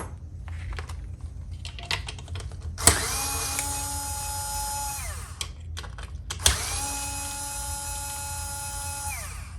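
Electric screwdriver or drill running twice, each run about two seconds, backing out screws. Each run ends with the motor winding down in pitch. Light clicks of small metal parts and screws being handled come before and between.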